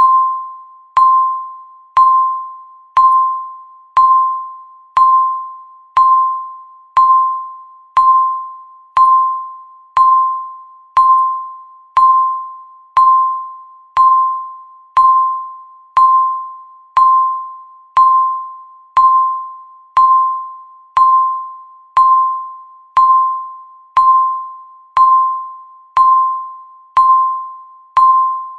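Countdown timer beeping once every second: a single mid-pitched electronic tone, each one starting sharply and fading out before the next.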